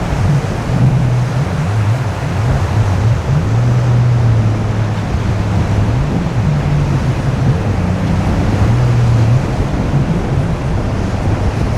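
Strong wind blowing across the microphone over the steady wash of heavy surf, with a low hum underneath that shifts in pitch now and then.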